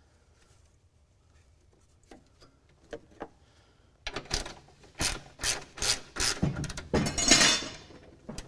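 Hand ratchet wrench loosening the radiator's mounting bolts. Faint clicks at first, then about four seconds in loud clicking strokes a couple of times a second, with a longer rasping run near the end.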